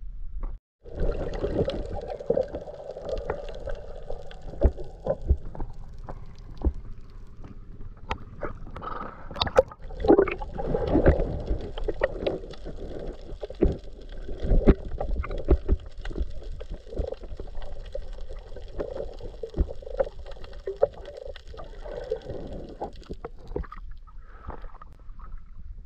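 Water sloshing and gurgling around a camera held at and below the surface beside a small fishing boat, muffled as if underwater, with irregular knocks from the hull and the net being hauled. The sound cuts out briefly about half a second in.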